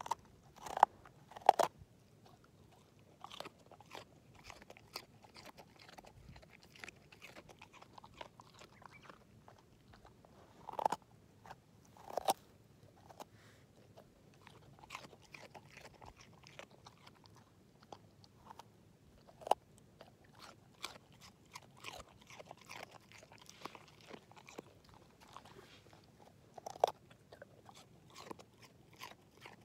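English setter chewing and crunching a raw carrot: irregular crisp bites and gnawing, with a few sharp, louder crunches spread through.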